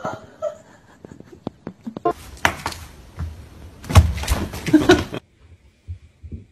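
Knocks and thuds on a wooden interior door, loudest about four seconds in, then cutting off suddenly a little after five seconds.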